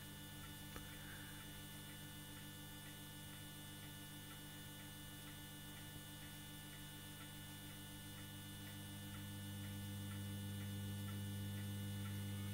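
Blaupunkt Stockholm valve radio warming up: a steady mains hum from its speaker that grows louder from about nine seconds in as the valves heat, with faint regular ticking throughout.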